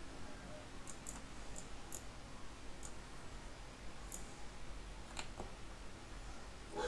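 Computer mouse buttons clicking, about seven scattered clicks at irregular intervals, over a faint steady hum. A brief, louder sound comes right at the end.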